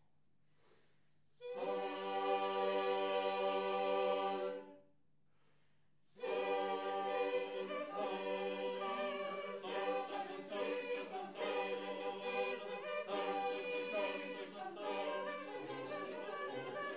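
Small mixed choir singing a cappella: one chord held for about three seconds, a short silence, then a moving passage of changing chords that carries on to the end.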